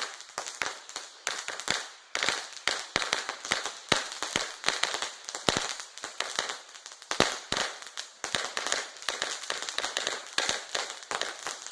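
A string of firecrackers going off: sharp, irregular bangs, several a second, with no let-up, so intense.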